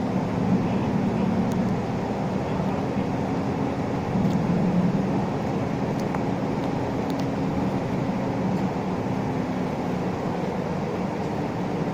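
Isuzu Erga LV290 city bus heard from inside the cabin while running: a steady engine drone with road noise.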